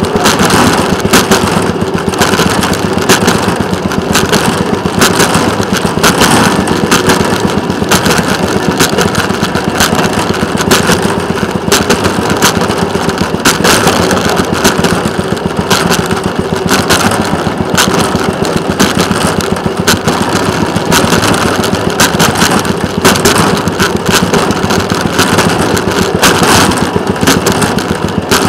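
Small engine of a railroad speeder (track motorcar) running steadily as it travels along the rails, with a fast, even pulsing beat.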